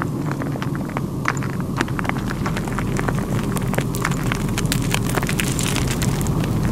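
Sound-designed volcanic ambience: a steady low rumble with many scattered sharp crackles and ticks over it.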